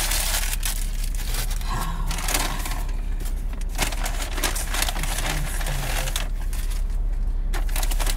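Paper takeout bag and food wrappers rustling and crinkling as they are handled and rummaged through, over a steady low hum.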